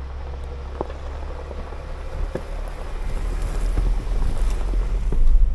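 Jeep Wrangler driving over a rough dirt trail: a low engine and drivetrain rumble that grows louder toward the end, with scattered knocks and rattles from the rocky ground.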